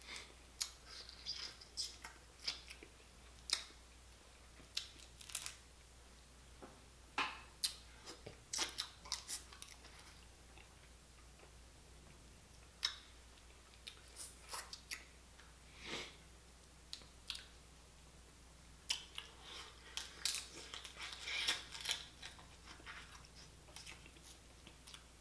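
Boiled blue crab shells crackling and clicking as they are picked apart by hand, with chewing of the crab meat in between. The crackles come in irregular clusters, thickest about a third of the way in and again past the middle.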